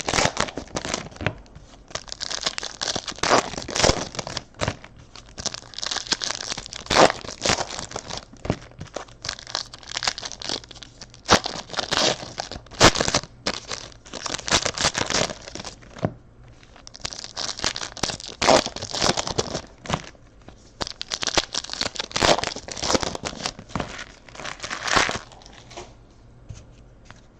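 Wrappers of trading card packs being torn open and crinkled, in irregular bursts of rustling and crackling with sharp snaps.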